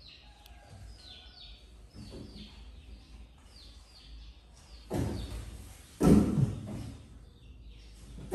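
A bird chirping in short falling calls, about two a second, then two loud thuds a second apart about five seconds in.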